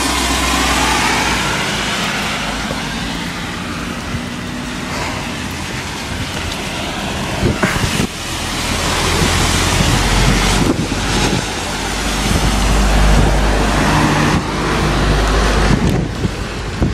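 Gusty wind buffeting the microphone in a rainstorm: a continuous rushing noise with a deep rumble, swelling louder about halfway through.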